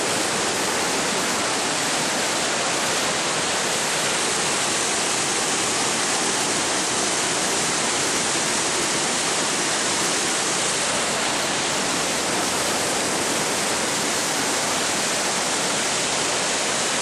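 Whitewater river rapids rushing over rocks: a steady, even rush of water.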